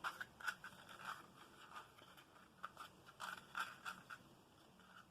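Thin craft paper being rolled up by hand: faint, irregular scratchy rustles.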